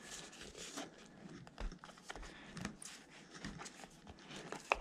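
Faint scattered clicks and taps from hands working a glue bottle into an RC tire's bead, with one sharper click near the end.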